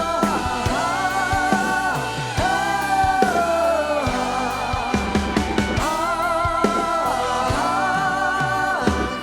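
Pop music playing: long, held melody notes with vibrato over a band accompaniment, changing pitch every second or two.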